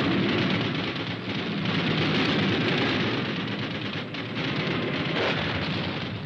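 Sound effects of an air attack on an airfield: a continuous rumble of explosions, with a sharper burst about five seconds in.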